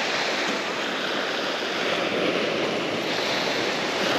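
Surf washing on a beach: a steady rushing noise that swells slightly a couple of times.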